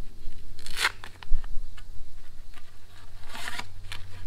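Nylon fabric of a float tube's stripping apron rustling as a rod is pushed through its sleeve, with two brief swishing scrapes, about a second in and near the end.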